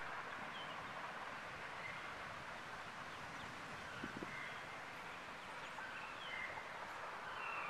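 Faint outdoor ambience: a steady hiss with birds chirping now and then, and a short low sound about four seconds in.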